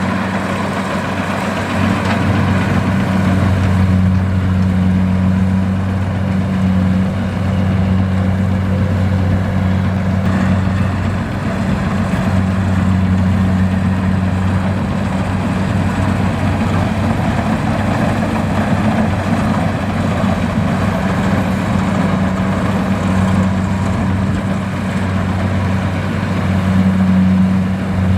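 Kubota DC-70 combine harvester's diesel engine running steadily, a deep even hum with the machine's working noise over it.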